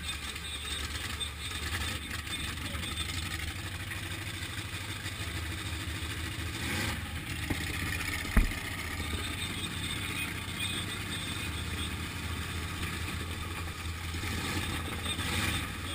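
Demolition derby car's engine running steadily with a low rumble, heard from inside the cab, with one sharp knock a little past halfway.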